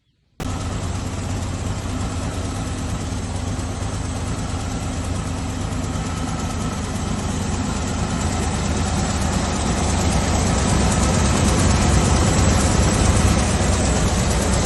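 An engine running steadily, cutting in abruptly about half a second in and growing slightly louder.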